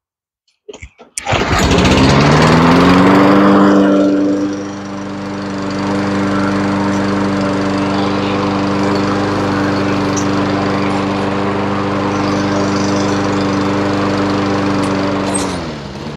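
A Toro Recycler push mower's small single-cylinder engine is pull-started on fresh oil and gas. It catches about a second in, revs up, settles to a steady even run, then is shut off and winds down near the end.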